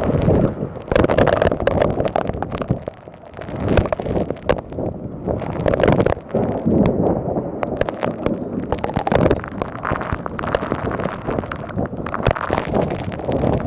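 Storm wind gusting hard across the microphone, the roar surging and easing every second or two, with many sharp taps and crackles through it.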